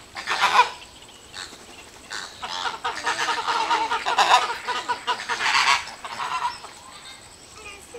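Geese honking: one burst of calls about half a second in, then a longer run of overlapping honks through the middle.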